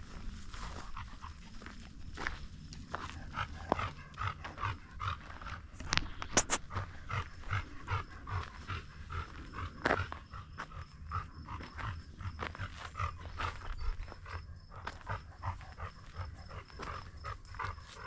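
A dog panting in quick, even breaths, about two to three a second, with soft footsteps on a dirt track.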